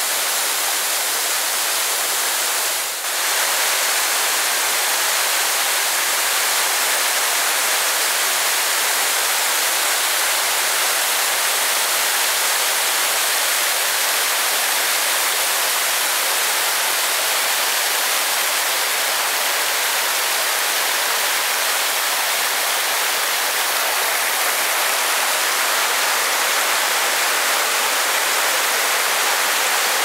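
Waterfall cascading down a steep rock face: a loud, steady rush of water, with a brief dip about three seconds in.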